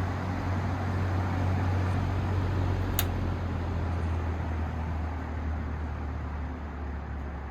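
Vintage Air King PL20P box fan running, its Westinghouse motor humming under the rush of air from its three metal blades. A sharp click comes about three seconds in, after which the fan gradually quietens as it slows toward low speed.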